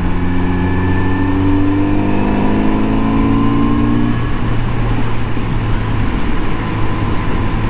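Kawasaki Z900RS inline-four engine pulling under way, its pitch rising slowly for about four seconds before settling to steady revs, over a constant rush of wind noise.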